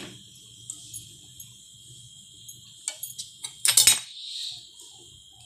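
Metal utensil clinks and knocks against a steel cooking pan of hot water holding drumstick-leaf stems: a few sharp ticks, then a loud burst of clatter a little before four seconds in.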